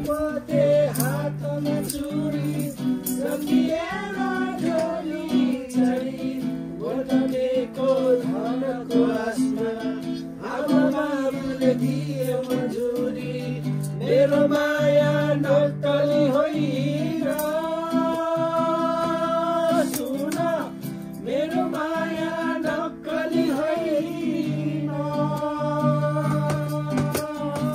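Music: a Nepali-language song, a voice singing over plucked acoustic guitar with a steady bass line.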